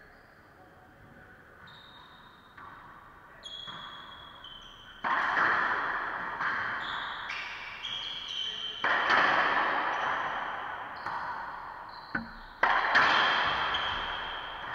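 Racquetball rally: racquet strikes and the ball smacking the court walls, each hit ringing out in the enclosed court, with short high squeaks from sneakers on the hardwood floor. The first few seconds are quiet, and the loudest hits come about five, nine and thirteen seconds in.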